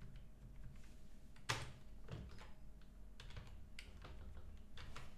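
Scattered, irregular keystrokes on a computer keyboard while code is edited in a terminal text editor, with one sharper key press about a second and a half in.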